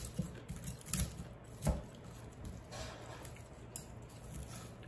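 Knife and fork clicking and scraping against a ceramic plate while pulling the flesh off a whole deep-fried scorpionfish, a few sharp taps in the first two seconds and softer ones later.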